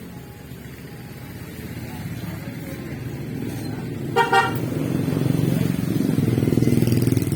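Small 50cc motorcycle engine running, growing steadily louder, with two quick horn toots about four seconds in.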